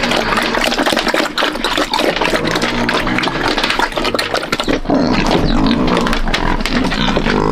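Pigs squealing and grunting loudly and without a break, with many short knocks and clatters mixed in.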